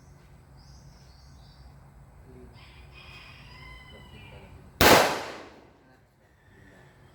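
A single gunshot about five seconds in: one sharp, loud crack with a short echoing tail that dies away within about a second.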